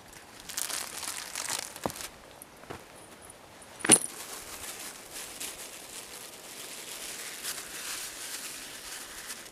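Rustling and crinkling of camping gear being handled and unpacked, with one sharp knock about four seconds in.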